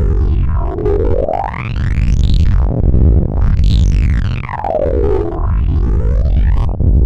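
Loud, distorted computer-made sound made in Audacity: a pitch that glides up and down several times like a slow siren, over a constant low rumble.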